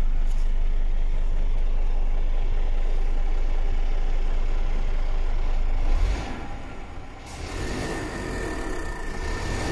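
Scania P450's six-cylinder diesel idling, heard from inside the cab as a steady low rumble. About six seconds in the rumble drops away abruptly, leaving a quieter hum with a thin high tone.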